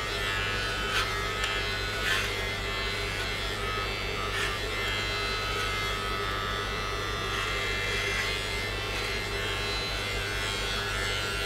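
Braun BT5265 electric beard trimmer running steadily through a haircut, a constant motor buzz. A few faint ticks sound over it in the first few seconds.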